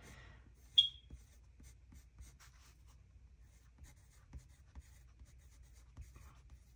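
A Faber-Castell Polychromos colored pencil scratching on hot-press cotton watercolor paper as a word is written, in a run of short, light strokes. A single sharp click sounds about a second in.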